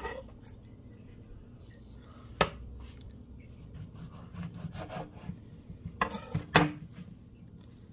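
A chef's knife scraping and rubbing on a wooden cutting board, with a few sharp knocks about two and a half seconds in and a quick cluster of them near the end.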